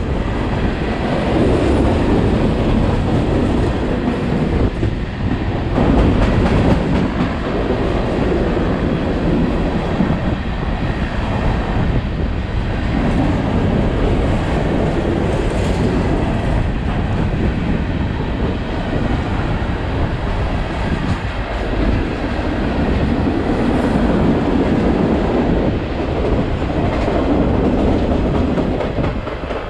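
Freight cars rolling past at close range: a steady rumble of steel wheels on rail, with the clickety-clack of wheels over rail joints.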